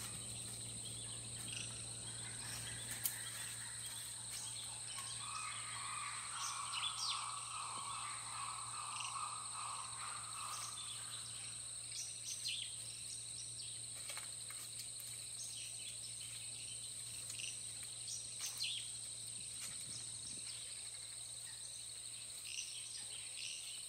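Faint natural ambience: scattered bird chirps over a steady, high-pitched insect hum, with a low steady hum beneath. A longer call lasts several seconds, starting about five seconds in.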